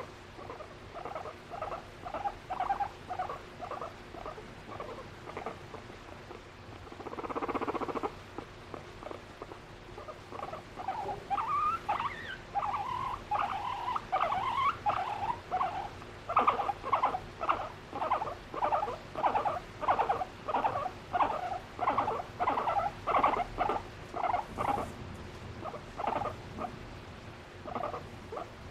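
Abyssinian guinea pig vocalizing while being stroked by her owner: a long run of short squeaky calls, about two to three a second, with higher calls that rise and fall in pitch in the middle and a rougher burst about seven seconds in. This is affectionate, attention-seeking chatter aimed at the owner.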